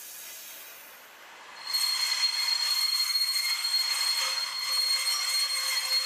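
Steel wheels of SJ night-train coaches squealing on the rails as the train rolls slowly along the platform. A high, steady screech sets in suddenly about a second and a half in, after a soft hiss.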